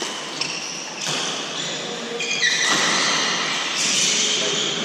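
Badminton shoes squeaking sharply on a wooden court floor during a doubles rally, with a few racket hits on the shuttlecock. The squeaks come in short high bursts near the start and again more thickly from about halfway through.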